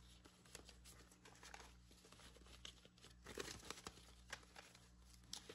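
Faint rustling and crinkling of paper dollar bills being handled and counted by hand, in short scattered rustles.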